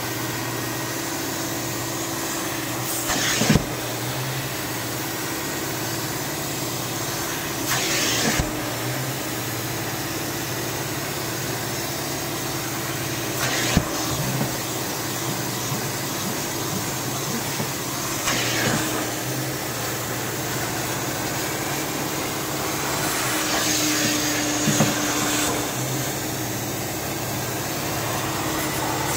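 Upholstery extractor's vacuum motor running steadily while its clear hand tool sucks across a wet cloth car seat. A short hissing rush comes roughly every five seconds.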